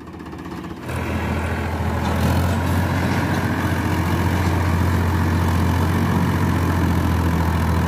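Powertrac Euro 50 tractor's three-cylinder diesel engine working hard under load, hauling a loaded trolley up a rubble slope. It comes up loudly about a second in and then holds steady.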